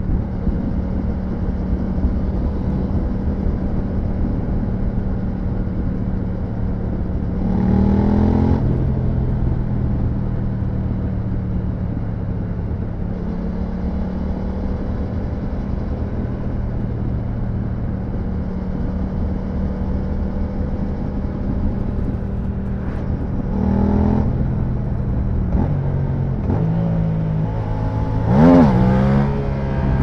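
Yamaha MT-07's parallel-twin engine through an Akrapovic full exhaust, running steadily at a cruise. It revs up briefly about eight seconds in and again a few seconds before the end. Near the end comes a sharp rev up and down, the loudest moment, after which the engine note falls away.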